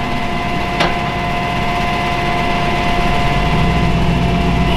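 Flatbed tow truck's engine running with a steady high whine over it while the tilted bed's hydraulics are worked, the low rumble growing louder about three and a half seconds in. A single sharp click about a second in.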